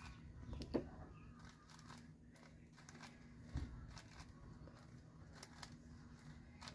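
Faint clicking of a 5x5 speedcube's layers being turned in quick moves, with a soft knock about a second in and another about three and a half seconds in.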